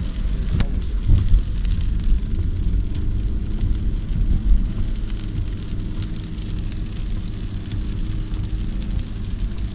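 Car driving in heavy rain: a steady low rumble of engine and tyres on the wet road, with rain ticking and spattering on the car. There is a sharp tick about half a second in.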